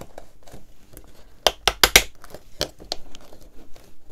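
Thin MDF panels clicking and knocking as they are pressed down into the slots of a wooden box. There are several sharp taps, bunched around a second and a half to two seconds in, and a few more near three seconds.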